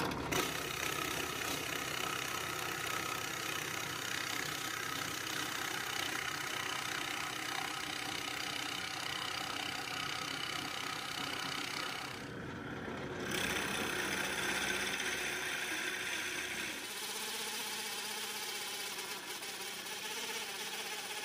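Drill press running with a Forstner bit boring flat-bottomed holes into wood: a steady motor hum with the rasp of the cutting bit. The sound changes briefly about twelve seconds in and again around seventeen seconds.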